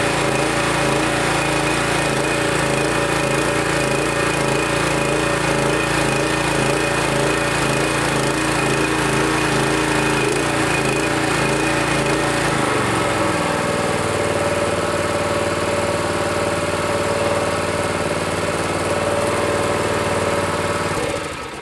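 Gas pressure washer running on a Harbor Freight Predator 212cc single-cylinder engine, making pressure. About two-thirds of the way through the low pulsing beat drops out and the sound steadies as the load on the pump changes. The sound stops near the end.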